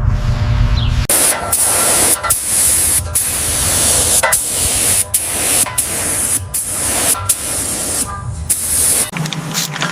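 A spray hissing in repeated bursts of about half a second to a second, separated by short breaks, after a low rumble that stops about a second in.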